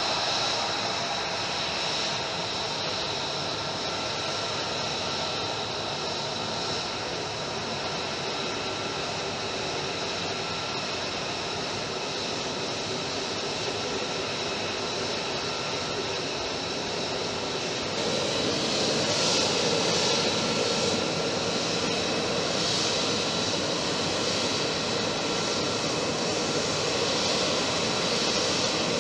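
F-35 fighter's F135 turbofan engine running at low power while taxiing: a steady high whine over a broad hiss, growing louder about two-thirds of the way through.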